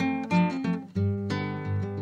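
Background music on acoustic guitar: quick picked notes, then a fuller strummed chord about a second in.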